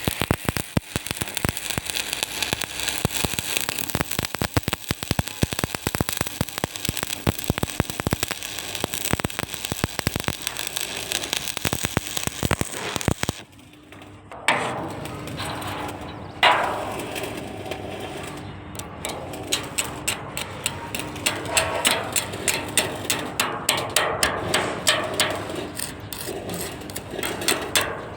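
Stick-welding arc crackling with fast, irregular pops. It stops for about a second near the middle, then starts again over a steady low hum.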